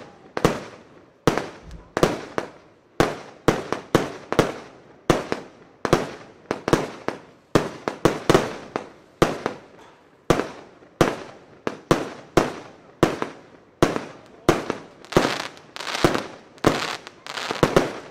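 J-Fireworks Storm firework battery firing shot after shot: a steady run of sharp bangs, about two a second, each trailing off in a short echo. Toward the end a crackling haze fills the gaps between the bangs.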